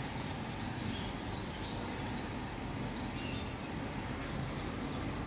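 Steady outdoor background rumble with faint, scattered bird chirps.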